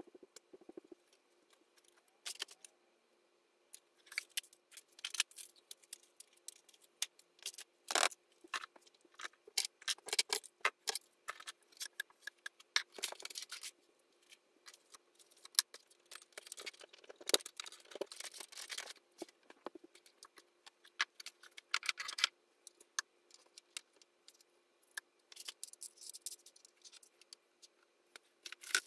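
Scattered clicks, clinks and rustles of small objects being picked up, handled and set down while tidying a sewing desk, over a faint steady hum.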